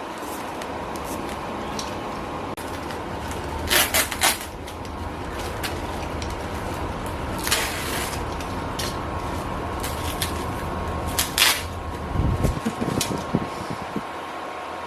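Plant packing being handled in a few short crinkles, several seconds apart, over the steady hum of an electric fan; a few low bumps near the end.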